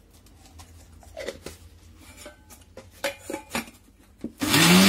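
Light clinks and taps of a steel plate being set on a steel mixer-grinder jar, then near the end the mixer-grinder's motor starts with a rising whine and grinds loudly for a short pulse, milling roasted lentil powder with cardamom pods.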